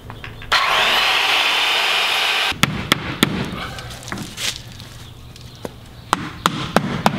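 Handheld circular saw running and cutting through a garage door weather strip for about two seconds, then stopping abruptly. Hammer strikes follow, nailing the weather strip to the door trim, a few at first and then a quicker run of them near the end.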